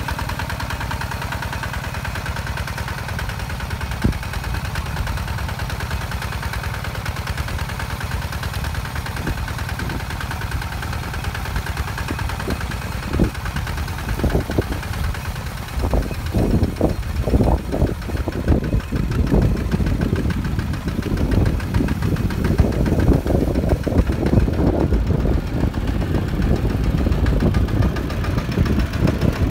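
Single-cylinder diesel engine of a two-wheel walking tractor running steadily under load as it pulls a disc plough through sandy soil. About halfway through it grows louder and rougher.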